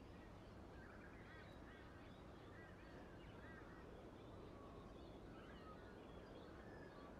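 Near silence: faint steady hiss with scattered faint bird chirps.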